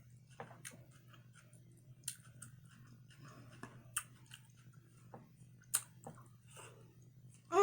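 Close-miked chewing and mouth sounds while eating soft stuffed rice with cheese: scattered small wet smacks and clicks over a steady low hum. A pitched, appreciative 'mmm' starts right at the end.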